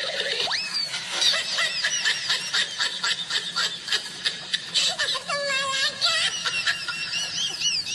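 Rapid, very high-pitched laughter that starts suddenly and runs in quick repeated giggles, with a wavering squeal about two-thirds of the way through.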